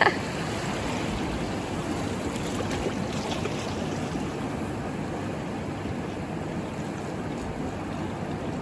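Ocean surf washing steadily on the shore.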